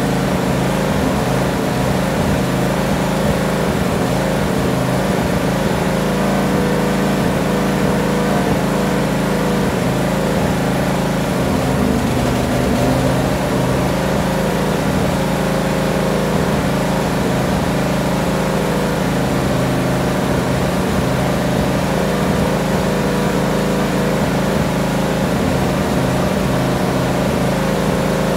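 Tractor engine idling steadily at an even pitch, with no change in speed.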